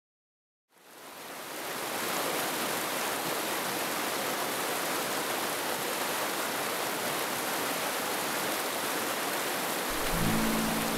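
Rushing mountain creek, a steady rush of water fading in after a moment of silence. Music comes in near the end.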